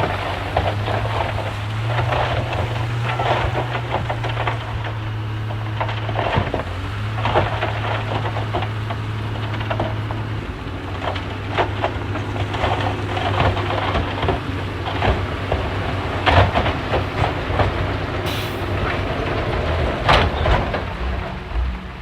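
Shantui crawler bulldozer's diesel engine running steadily under load, with frequent metallic clanks and knocks from the tracks and the material being pushed. A brief hiss sounds about eighteen seconds in.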